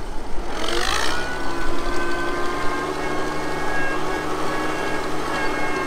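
1952 Oliver 88 row-crop tractor's six-cylinder engine speeding up, its pitch rising about a second in, then running steadily as the tractor drives ahead.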